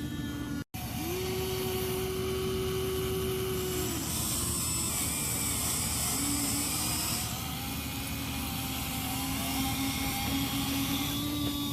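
Electric motors of a Huina RC excavator whining as the machine works, the pitch stepping up and down as different functions start and stop.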